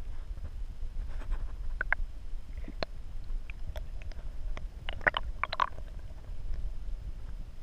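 Underwater recording: a steady low rumble of water moving around the submerged camera, with scattered sharp clicks and taps and a quick cluster of them about five seconds in.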